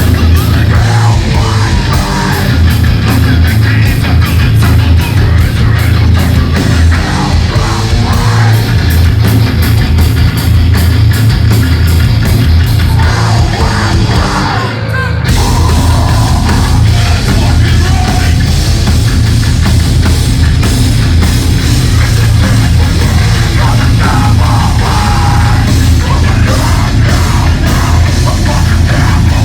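Live heavy metal band playing loud, with distorted guitars, heavy bass and drums under a singer's vocals. About halfway through, the sound cuts abruptly to a different passage.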